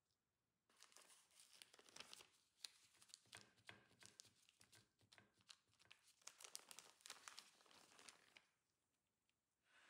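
Quiet crinkling of a thin plastic sheet, and the plastic glove on it, as the sheet is pressed and folded over a stuffed minced-meat patty: many small rapid crackles that stop about a second and a half before the end.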